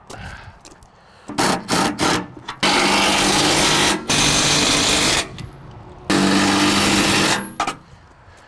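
An electric motor switched on and off in bursts: two or three quick blips, then three longer runs of about a second each, each starting and stopping abruptly.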